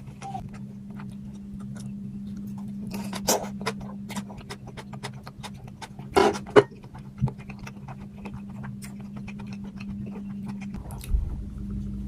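A person eating: chewing with many small clicks and scrapes, and a few louder cracks about three seconds in and halfway through, over a steady low hum.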